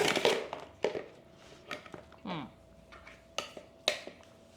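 A spoon knocking and clinking against a mixing bowl in a handful of sharp, irregular strikes as dry cake ingredients (flour and cocoa powder) are stirred.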